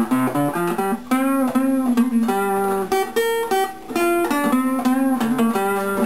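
Nylon-string classical guitar played with the fingers: a run of plucked notes and chords.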